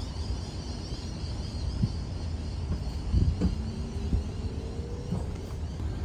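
Car driving slowly, heard from inside the cabin: a steady low road and engine rumble, with a faint rising whine about four seconds in.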